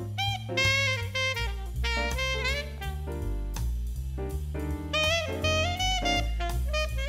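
Background jazz music with a saxophone-like melody over bass and drums.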